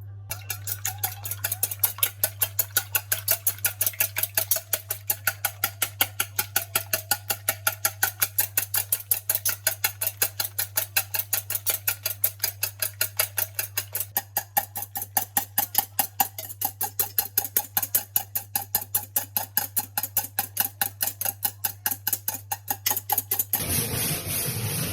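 Rapid, evenly spaced knocks, about four a second, over a steady low hum. The knocking stops about a second before the end, and a rougher, steadier noise takes over.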